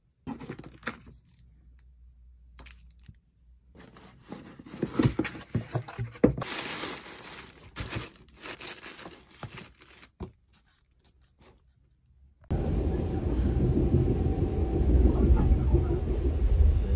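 Paper and cardboard packaging rustling and crinkling in uneven bursts as a shoe box is unpacked from its tissue paper. About twelve seconds in it cuts suddenly to the steady low rumble of a moving train's interior.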